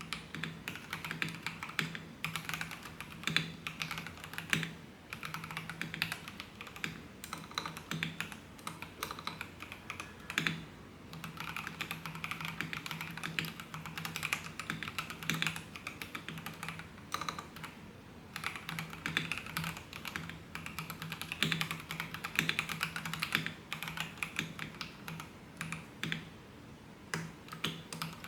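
Fast, continuous typing on an FL-Esports FL750 mechanical keyboard: a dense stream of key clacks broken by a few short pauses.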